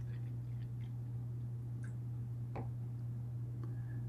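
Steady low hum with a few faint clicks and taps; the cashew milk pouring into the blender cup trails off just after the start.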